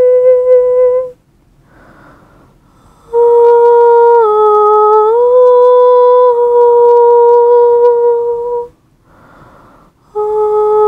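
Slow solo humming of long held notes, the pitch stepping slightly down and back up within a phrase. A breath is drawn between phrases about two seconds in and again near the end.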